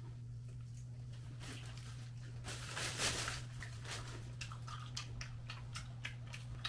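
People eating fried chicken and rice: chewing and crunching with small clicks of chopsticks and a spoon against plate and bowl, and a brief louder rustle near the middle, over a steady low hum.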